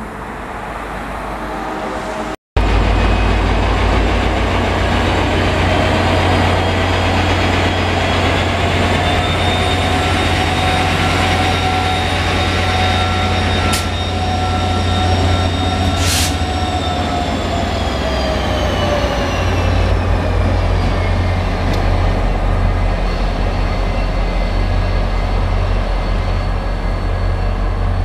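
MBTA F40-series diesel locomotive running loudly as it moves its commuter train, with a heavy steady deep rumble. A high whine rides on it and falls away about two-thirds of the way through.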